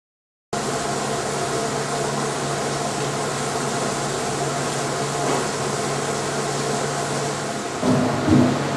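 GLASS AGM universal mixer running with its cutting knife turning in the open stainless-steel bowl: a steady machine hum that starts suddenly about half a second in. Near the end, two thuds as blocks of cheese drop into the bowl onto the knife.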